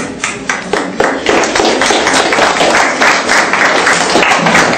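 Audience clapping in a classroom: a few separate claps at first, filling out after about a second into steady applause.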